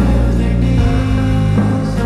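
Background music with a strong bass line; the bass note changes about three-quarters of a second in.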